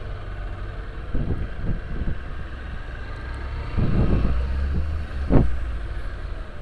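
Low steady rumble of a vehicle in motion, with wind buffeting the microphone and a few muffled knocks, one sharper knock about five seconds in.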